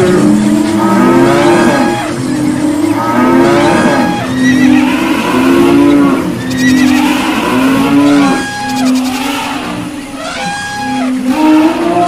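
Cartoon stampede soundtrack: a loud, busy mix of animal calls over a repeating run of held pitched notes.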